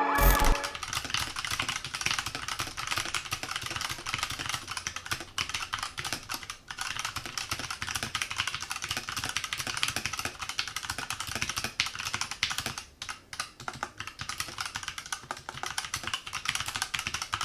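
Fast, continuous typing on a Redragon K530 60% mechanical keyboard with Outemu Box Brown switches: a dense, uneven stream of keystrokes.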